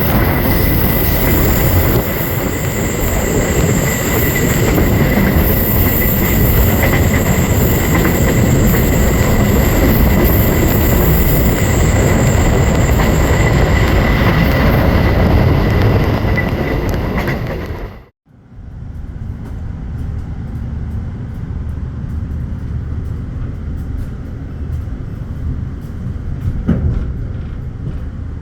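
A train running on the rails: a loud, dense rumble of wheels with a steady high-pitched wheel squeal over it. About two-thirds of the way through it cuts off abruptly, and a quieter rail rumble with light scattered clicks follows.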